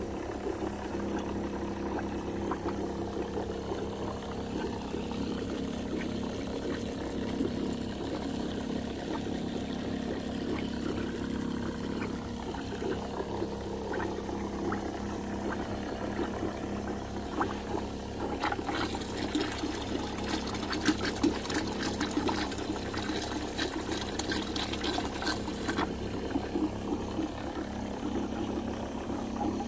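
Descaling solution gushing from a hose outlet into a plastic bucket and churning the liquid, over the steady hum of the pressure washer pumping it through its heater coil. A spell of crackling joins in about two-thirds of the way through.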